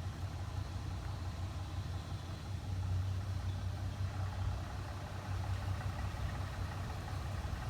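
Pickup truck engine running slowly at a steady low hum as the truck creeps through deep floodwater.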